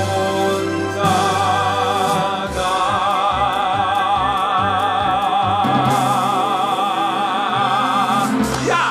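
Music: a singing voice holds long notes with a wide vibrato over a bass line that changes note every second or so.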